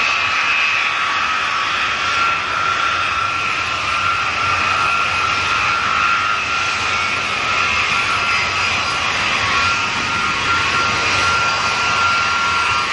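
Ilyushin Il-76 transport's four turbofan engines running on the ground with a steady, high whine over a rushing jet noise.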